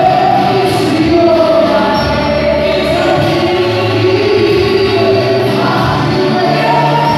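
A small group of young singers singing a gospel worship song together in several voice parts through handheld microphones and a PA, the sustained notes held and sliding slowly, over steady low notes.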